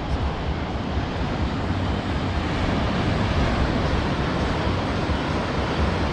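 Steady rushing noise of surf and wind on the microphone, with low rumbling buffets.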